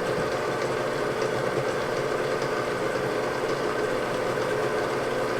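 Electric mixer running steadily on low with a constant motor drone, beating milk into muffin batter; the baker says the mixer needs a little oil.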